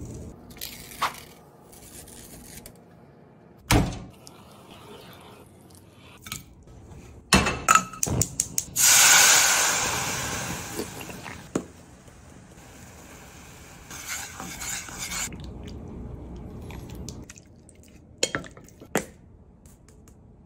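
Kitchen cooking sounds: scattered knocks and clinks of utensils against pans and bowls. About nine seconds in comes a sudden loud hiss that dies away over a couple of seconds: sauce sizzling in a hot pan.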